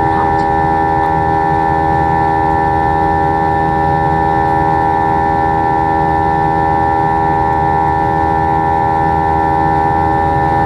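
Airbus A321-231's IAE V2500 turbofan engines heard from inside the cabin during the climb: a steady drone of several constant tones over a low rumble.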